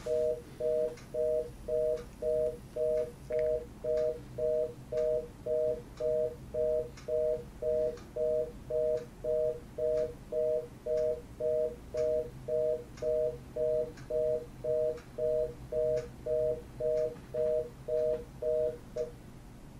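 Telephone reorder (fast busy) tone on the line: two tones sounding together in short, even beeps about twice a second, stopping shortly before the end. It signals that the call cannot be completed, here after a not-in-service intercept.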